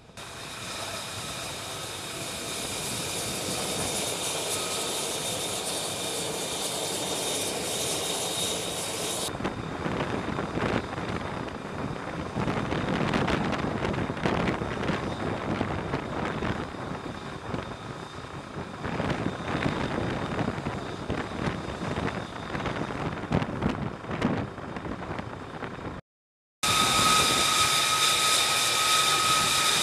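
F-35C Lightning II's single Pratt & Whitney F135 turbofan running on deck: a high steady whine that swells over the first few seconds, then about fifteen seconds of rough rushing jet-exhaust noise. After a brief dropout near the end, the loud high whine returns.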